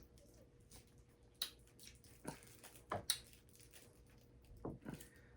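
Faint gulps and small mouth sounds from someone drinking a bottled chocolate-cookie milk drink: a handful of short, separate sounds, two of them close pairs.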